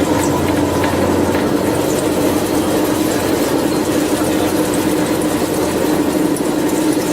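CNC drilling-milling machine running steadily, a mechanical hum with a held tone over it; a deeper hum underneath drops away about a second and a half in.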